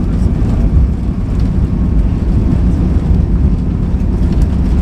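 Airbus A320 rolling fast down the runway just after touchdown, heard inside the cabin: a loud, steady, deep rumble of the engines and the landing gear on the runway.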